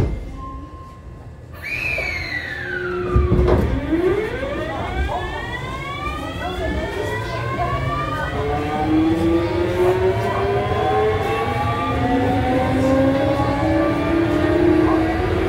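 Kintetsu 7000 series train's Mitsubishi GTO-thyristor VVVF inverter whining as the train pulls away and accelerates: about two seconds in one tone falls sharply, then several whining tones climb steadily in pitch together over the train's running noise.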